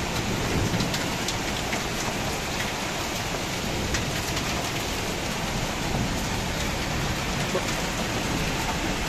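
Muddy floodwater rushing and splashing down a rocky roadside channel in heavy rain: a steady, dense rush of water with fine pattering throughout.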